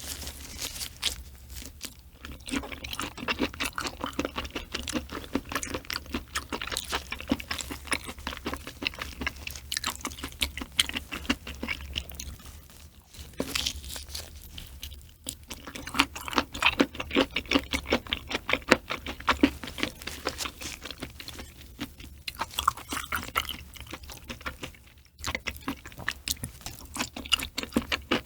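Close-miked eating: chewing and crunching with dense, quick wet mouth clicks, in bouts broken by a few short pauses.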